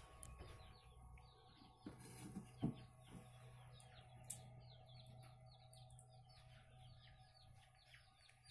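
Faint, continual peeping of six-day-old chicks, many quick falling cheeps one after another, over a low steady hum. A couple of short knocks a couple of seconds in.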